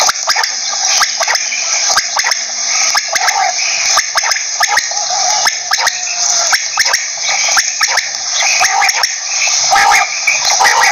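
Common quail calling: a dense run of short, sharp repeated notes over a steady high hiss.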